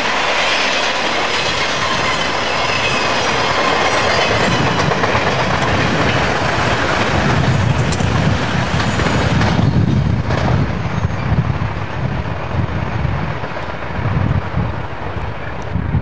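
Freight cars of an intermodal train rolling past, their steel wheels clattering over the rail joints. After about ten seconds the high rail noise falls away as the train draws off, leaving a lower rumble.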